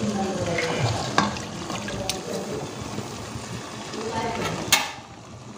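Chicken in gravy simmering in a metal pot as the lid is lifted off, with a few sharp metal clinks of lid and pot, the loudest near the end.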